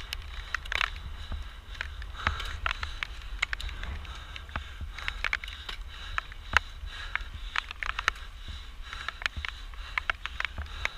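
Mountain bike ridden fast down a rough trail: the frame and chain clatter in a dense run of irregular sharp clicks over a steady low rumble of tyres and wind.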